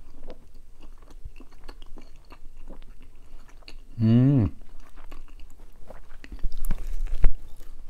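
Close-miked chewing of a bite of cheese pizza, with crunches of crust and wet mouth clicks. About four seconds in comes a short hummed 'mm'. Near the end there is a sharp thump, the loudest sound.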